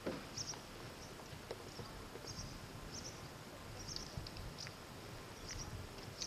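A small bird chirping, a short high chirp repeating roughly once a second over faint outdoor background noise.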